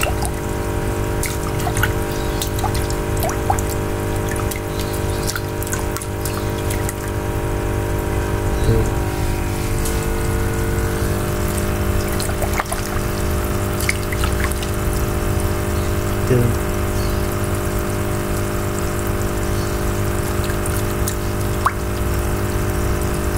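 Water splashing, sloshing and dripping as a hand swishes a female freshwater crayfish about in a tank, over a steady hum that runs throughout.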